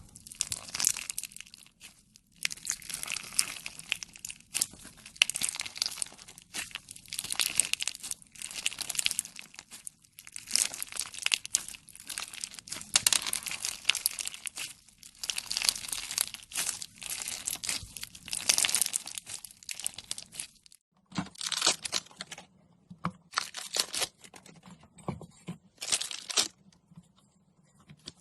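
Slime being worked by hand, a run of crackling, popping and tearing sounds with brief pauses. After about three quarters of the way through, the sounds come as a few short separate bursts.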